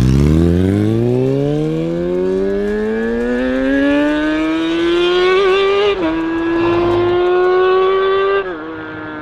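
2019 Kawasaki ZX6R's inline-four, stock exhaust removed, pulling away hard under acceleration. The engine note climbs steadily, drops sharply at an upshift about six seconds in, climbs again, and drops at a second upshift near the end as the bike moves off into the distance.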